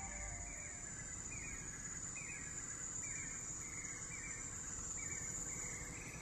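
Rainforest ambience: a steady high-pitched insect drone, with a short falling chirp repeating about once or twice a second and a faint low rumble underneath.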